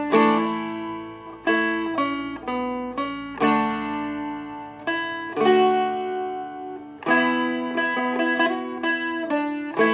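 A Seagull Merlin M4 four-string fretted dulcimer-guitar played slowly, with single plucked melody notes and strummed chords that each ring out and fade before the next.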